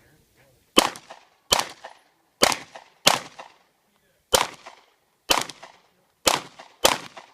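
Glock pistol fired in a timed string: eight sharp shots at an uneven pace, about one a second, each followed by a short echo.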